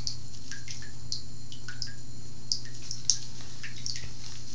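Water dripping into a bathtub: scattered small drops plinking a few times a second over a steady low hum.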